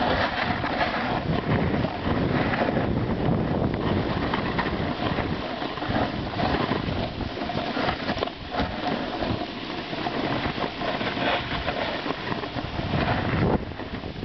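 Wind buffeting the camera's microphone: an uneven rushing noise that rises and dips throughout.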